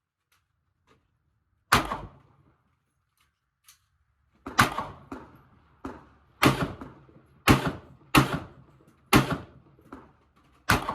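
Handgun shots in a string: one sharp shot, then from about four and a half seconds in six more, roughly one a second, with fainter cracks between them.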